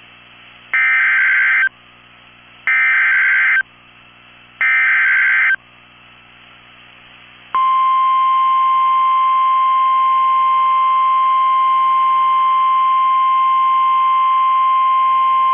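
Emergency Alert System header from NOAA Weather Radio: three one-second bursts of warbling data tones about two seconds apart, then, about seven and a half seconds in, the long steady single-pitched warning alarm tone (1050 Hz) that announces a weather warning.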